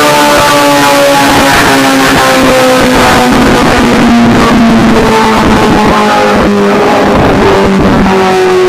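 Honda CBR1000RR-R SP's inline-four engine running on a dynamometer, its revs falling slowly and steadily, with guitar music mixed over it.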